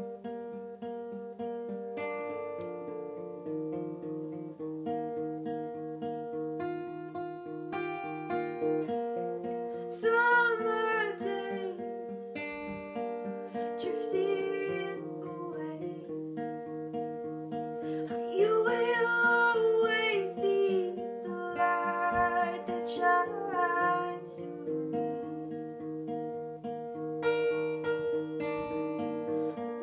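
Acoustic guitar playing a song, with a woman's singing voice coming in about ten seconds in and again from about eighteen to twenty-four seconds, louder than the guitar.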